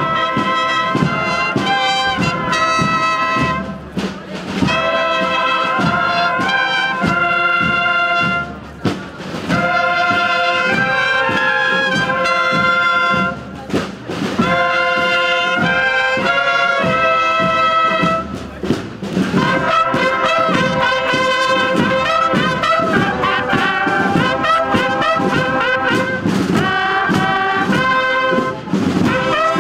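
Marching brass band playing a processional march, with trumpets and other brass horns in unison phrases over a steady beat. The music breaks off briefly every few seconds between phrases.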